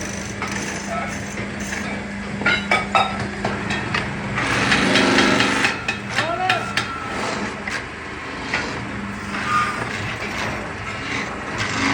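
Metalworking factory noise: a steady machine hum that stops about four and a half seconds in, a louder rush of machine noise just after, and scattered sharp knocks and clanks throughout.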